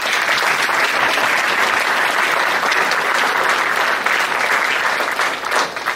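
Audience applauding, a dense clapping that starts at once and dies down just before the end.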